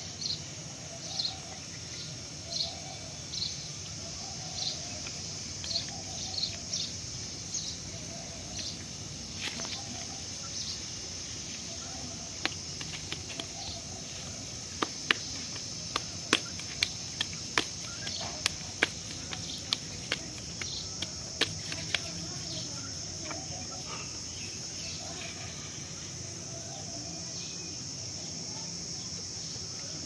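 Outdoor ambience: a steady high-pitched drone of insects, with a bird chirping again and again through the first ten seconds. From about twelve seconds in, a run of a dozen or so sharp clicks and knocks stands out, louder than everything else, and stops a little after twenty seconds.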